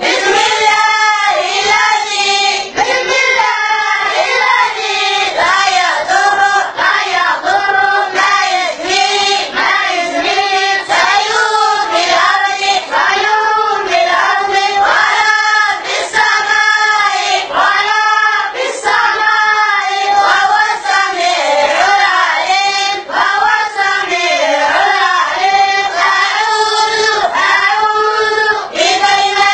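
A group of boys singing together in unison in a steady, rhythmic tune.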